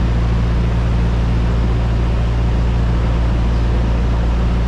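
Steady drone of a light single-engine propeller airplane's engine and propeller in flight, heard inside the cabin, with a constant rush of air noise over it.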